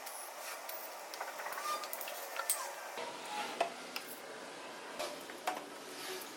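Scattered light clicks, taps and scrapes over a steady hiss, with a few faint short squeaks.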